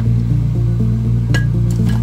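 Background music with a steady run of low notes, and a couple of light clicks about a second and a half in as ingredients land in a frying pan.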